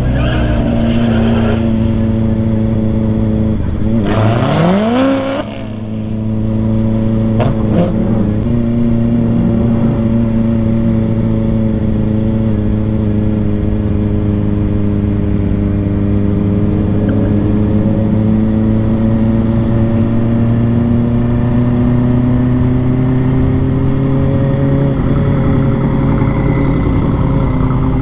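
Kawasaki Ninja ZX-4RR's 399 cc inline-four engine running at a steady, fairly high pitch while riding, with wind noise. About five seconds in, the note drops briefly and then climbs back quickly as the throttle is rolled back on.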